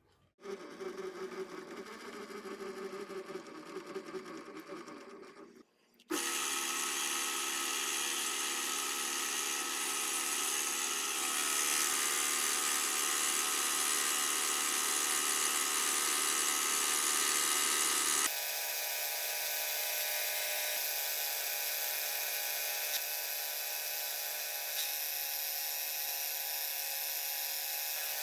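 Clausing vertical milling machine with its end mill cutting a square steel bar, squaring it up. The cut is a loud, steady machining sound that starts about six seconds in and changes tone about two-thirds of the way through. It is preceded by a few seconds of quieter, uneven mechanical sound.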